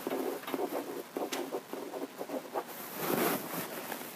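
Marker writing on a whiteboard in short squeaky strokes, with a longer scratchy stroke about three seconds in.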